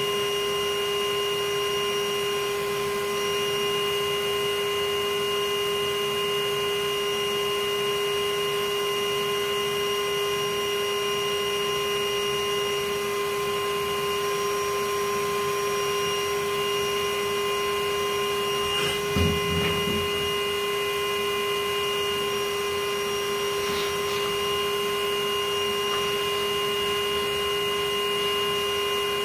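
Bee vacuum motor running steadily with an even, high whine over a rushing hiss. A single low thump about 19 seconds in.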